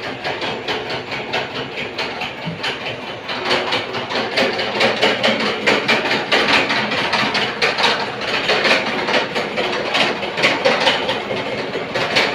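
Plastic-making machine running, its mechanism clattering in a fast, even rhythm of sharp knocks and clicks that gets louder about three seconds in.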